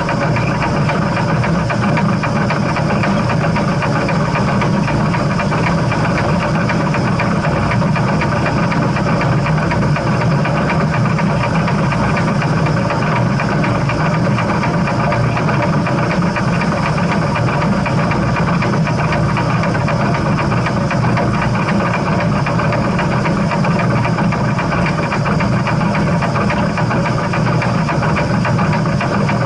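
Steam train running with a steady, unchanging mechanical noise, heaviest in the low range.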